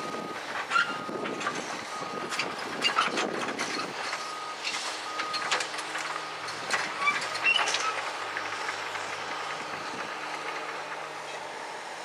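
Komatsu PC200 excavator's steel crawler tracks clanking and knocking as it travels along the top of the rail gondolas, with its diesel engine running steadily underneath. A high steady tone comes and goes during the first few seconds.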